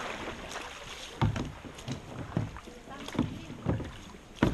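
Paddling a plastic canoe: paddles dipping and splashing and knocking against the hull in irregular strokes, over a light rush of water and wind. The sharpest knock comes near the end.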